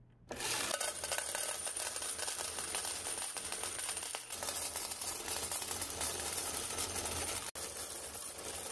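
Glory CP-9 coin counter running a batch of quarters: it starts abruptly as the start button is pressed, then a dense, steady clatter of coins rattling off its spinning disc and clicking through the counting mechanism.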